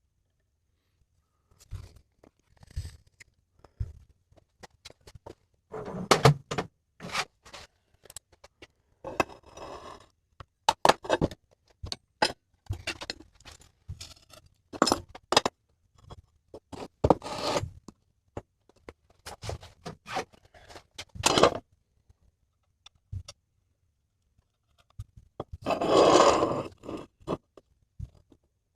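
Parts and tools being handled on a workbench: scattered knocks, clicks and short scrapes, with a longer scrape near the end.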